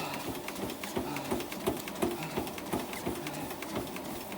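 Running footfalls on a treadmill, a steady rhythm of about three thuds a second.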